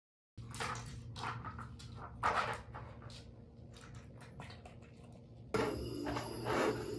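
Light wooden clacks and knocks as a small dog noses and shifts the pieces of a wooden puzzle feeder to get at its food. Near the end, a spoon knocks and scrapes in a bowl.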